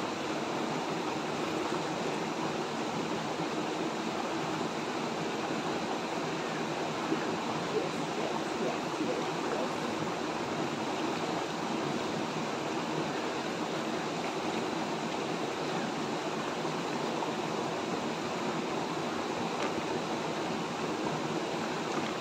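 Shallow rocky river running steadily: a constant rush of water over stones. Two light clicks sound about seven and eight seconds in.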